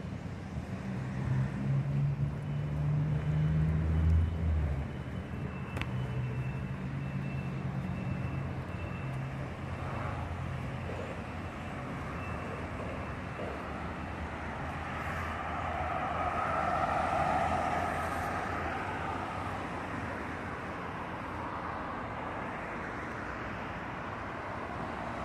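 A bus's diesel engine runs close by with a steady low hum. It is loudest about four seconds in, then fades into steady station traffic noise. A second, higher-pitched vehicle noise swells and dies away about two-thirds of the way through.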